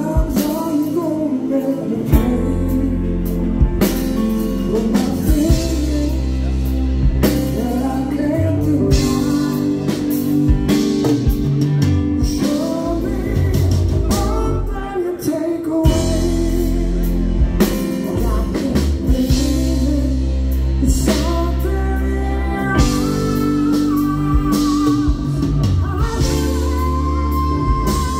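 Live rock band playing a slow song: a man sings lead while playing a keyboard, with bass and drums behind him.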